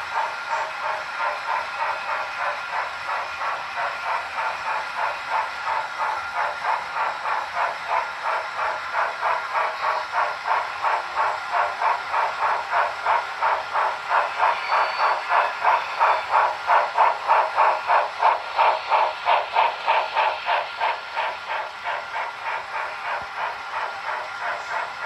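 HO-scale Union Pacific steam locomotive model chuffing in a steady, even rhythm with a hiss of steam, loudest as it passes by about two-thirds of the way in, then softer as the freight cars follow.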